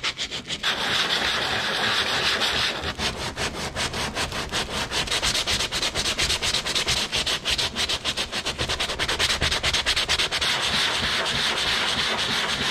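Hand sanding of a plastic-welded patch on a plastic kayak hull: folded sandpaper scraped rapidly back and forth, a steady run of fast, scratchy strokes as the weld is smoothed down.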